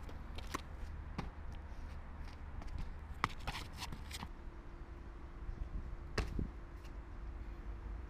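Scattered sharp footfalls and hand slaps on concrete as a parkour runner runs and vaults low walls, over a steady low wind rumble on the action camera's microphone. A faint steady hum comes in about four seconds in.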